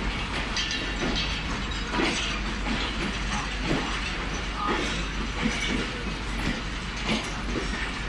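Pakistan Railways passenger coaches of the Jaffar Express rolling slowly along the platform, their wheels and running gear clanking and clicking irregularly over the track.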